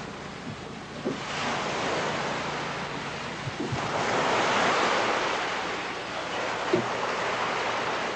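Sea waves washing, swelling up twice, the second time louder, with wind noise and a few faint knocks.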